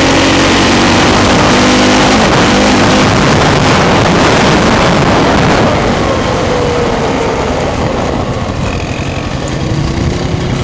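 ATV engine running hard under throttle, heard through a helmet-cam microphone with heavy wind and rushing noise. About six seconds in the engine eases off and the overall level drops a little.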